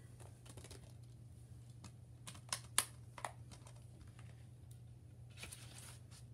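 A few sharp, light clicks and taps about two to three seconds in, then a short rustle near the end, from an unboxed Blu-ray case and its paper inserts being handled. A faint low hum runs under it.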